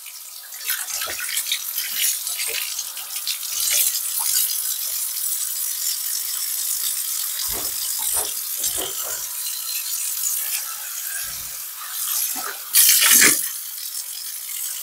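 Kitchen faucet running onto a cast iron skillet in the sink, the water splashing off the pan. A few short knocks come partway through as the pan is handled, with a louder clatter near the end.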